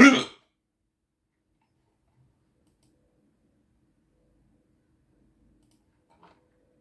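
A person's loud hiccup right at the start, short and sharp, then a much fainter one near the end.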